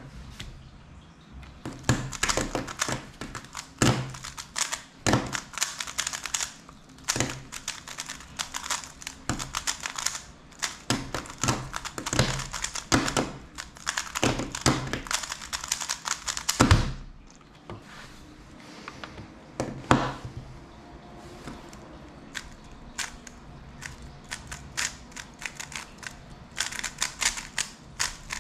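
MoYu WeiLong WR M 2021 speedcube being turned fast one-handed: a dense, rapid clacking of layer turns for about fifteen seconds. It ends with a hard knock of the hand slapping the stackmat timer to stop the solve, followed by sparser clicks of the cube being handled.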